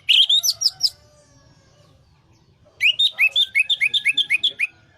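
Orange-headed thrush singing: a quick jumble of high notes right at the start, then after a pause of about two seconds a phrase of rapid repeated upslurred whistles, about six a second.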